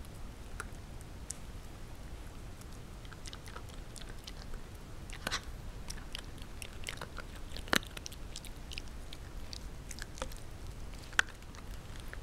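Shiba Inu puppy chewing a crispy chew treat: irregular short crunches and clicks, with two louder cracks, one past the middle and one near the end.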